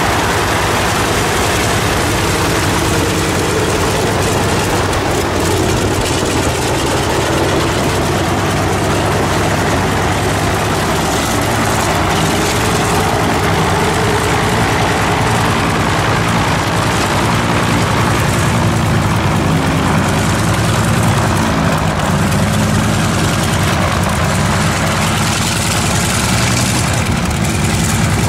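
Antonov An-2's nine-cylinder Shvetsov ASh-62 radial engine running steadily on the ground with its propeller turning, a deep, even beat. This is the freshly installed engine's first run in many years.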